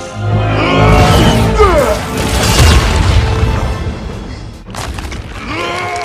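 Loud cinematic soundtrack music with deep booming hits and sound effects that sweep down in pitch about a second and a half in.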